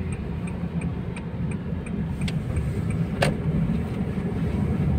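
Inside a moving car: steady engine and road rumble, with the turn-signal indicator ticking about three times a second for the first two seconds, then stopping. A single sharp click about three seconds in.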